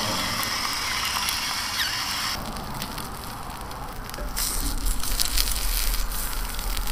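Egg sizzling and crackling on a hot porcelain-coated cast iron griddle plate. A spatula scrapes across the plate under the egg in the last few seconds, when the sound grows louder.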